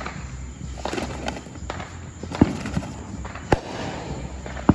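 Fireworks going off: a run of sharp bangs at uneven intervals, the loudest about two and a half seconds in.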